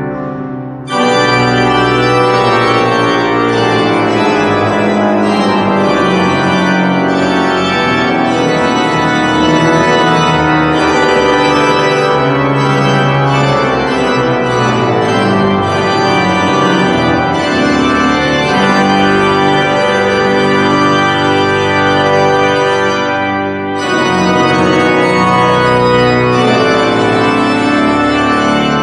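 Seifert pipe organ playing a loud festive march in full, sustained chords. The sound briefly drops back just before a second in and again near 24 s, each time coming straight back to full chords.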